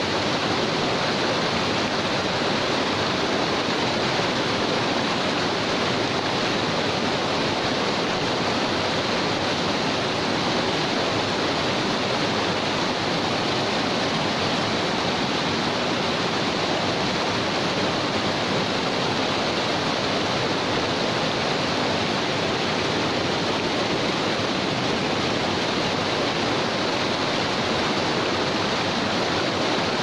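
Shallow rocky river flowing over stones and boulders, a steady, even rush of water through the riffles.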